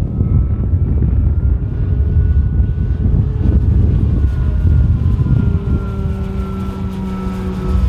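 Large electric RC aerobatic airplane (a Slick 580 model on a 10-cell battery) flying, its motor and propeller making a thin whine that slowly rises and then falls in pitch, under a heavy low rumble.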